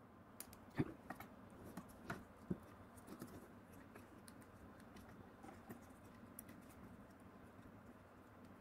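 Faint, scattered small clicks and taps of small plastic cable connectors being handled and pushed into their sockets on the module's circuit board. The clearest clicks come in the first three seconds.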